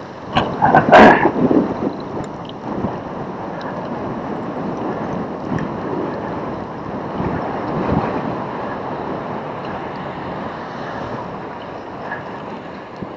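Cyclocross bike riding over bumpy grass, heard through the onboard camera's microphone: a steady rush of wind noise with the frame and tyres rattling, and a loud clatter of knocks as the bike jolts about a second in.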